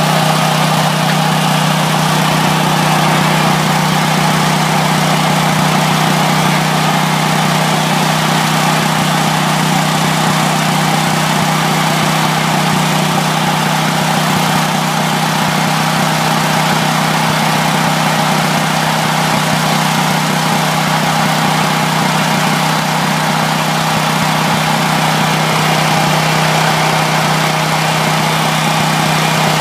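Powerland portable generator's single-cylinder engine running steadily on natural gas.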